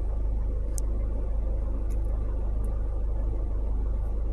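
Steady low rumble with no speech, with a couple of faint brief ticks about one and two seconds in.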